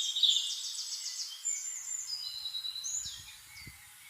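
Small birds singing and chirping: high whistled notes overlapping, with a fast trill about half a second in.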